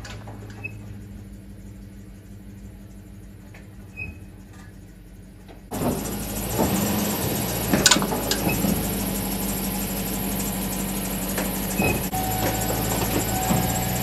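Vehicle engine running low and steady as a Chevy Tahoe is driven up onto a car-hauler trailer. About six seconds in the sound becomes much louder and closer, with a sharp knock about two seconds later.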